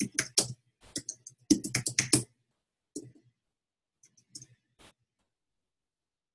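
Computer keyboard typing: a quick run of keystrokes over the first two seconds or so, then a few scattered taps.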